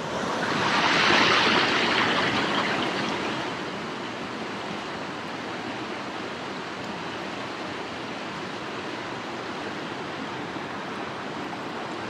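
Mountain stream water rushing over rocks, a steady rush that is louder for the first three seconds or so and then settles to an even level.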